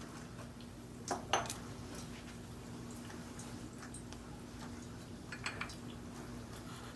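A metal spoon clinking against a cooking pan twice about a second in, then a few light taps near the end, over a low steady hum.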